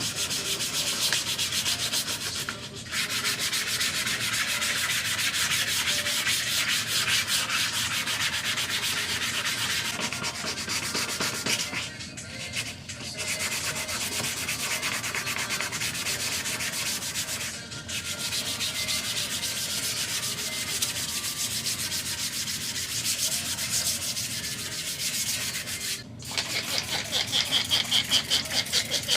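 Sandpaper rubbed rapidly back and forth by hand over the painted front bumper of a Mini Cooper JCW, sanding the paint down before it is repainted. It stops briefly a few times, and the strokes get louder near the end.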